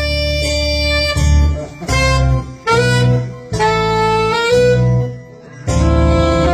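Live band music: held melody notes over a steady bass line, with short breaks between phrases and a longer pause near the end before the band comes back in.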